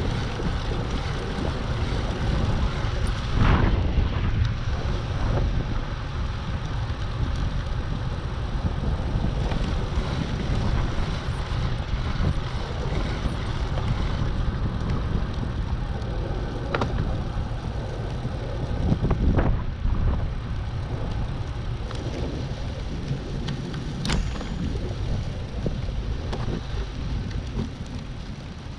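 Wind buffeting the microphone over the rush of surf on a beach, a steady rumbling roar with stronger gusts a few seconds in and again about two-thirds of the way through.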